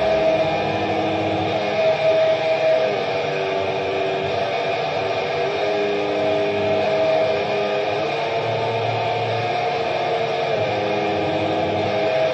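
Lo-fi black metal recording: a dense wall of distorted guitar noise with a slow melody of long held notes over it.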